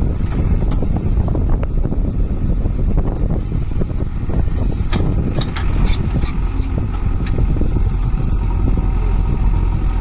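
Diesel engine of a JCB backhoe loader running steadily under work, with a few short sharp clinks about halfway through and near the end.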